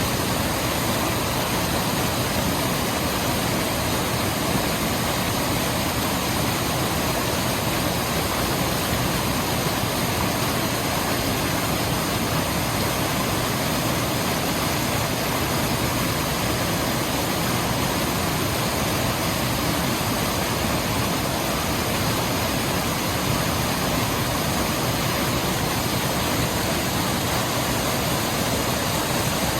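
Running water rushing in a steady, even hiss with no breaks or changes.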